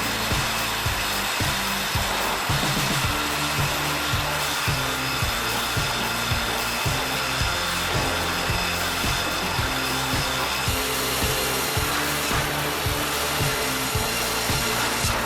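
A powered saw running and cutting through wood, with a steady high whine, over background music with a regular beat.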